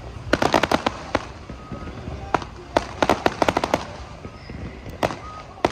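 Aerial fireworks: rapid runs of sharp cracks and pops from bursting shells, in three clusters (about half a second in, around three seconds in, and at the end) with single bangs in between.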